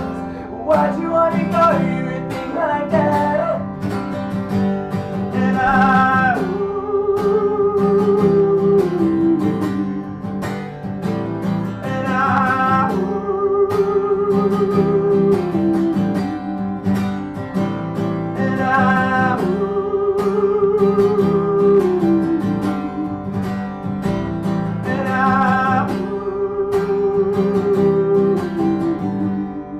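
Acoustic guitar strumming under a singing voice. The singer repeats phrases about every six seconds, each ending in a long held note, and the song finishes just before the end.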